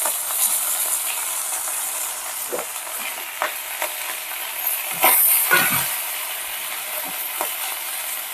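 Pieces of goat skin sizzling as they fry in hot oil in a pan, with short clicks from stirring against the pan. The sizzle flares louder about five seconds in.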